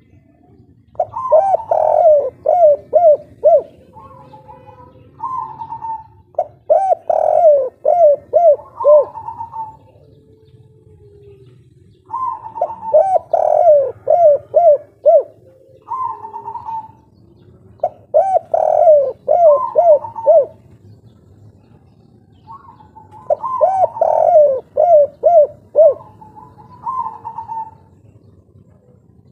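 A spotted dove (tekukur) cooing its song over and over, in about five bouts. Each bout is a run of quick, throaty coos, with softer single notes between the bouts.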